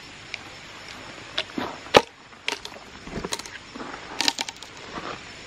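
A string of sharp wooden knocks and cracks from freshly cut thick walnut pieces being split apart and handled, the loudest crack about two seconds in.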